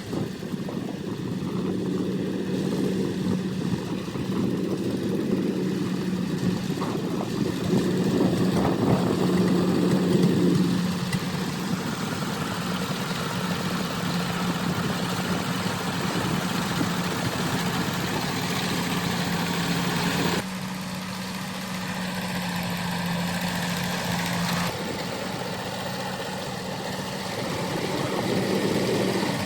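Rice combine harvester running steadily, its engine holding one constant note under a wash of machinery noise. The sound changes abruptly about twenty seconds in and again about five seconds later.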